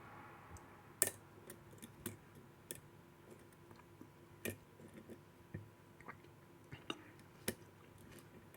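Lock pick and tension wrench working inside a registered-mail padlock: scattered faint, irregular clicks and ticks as the pins are probed.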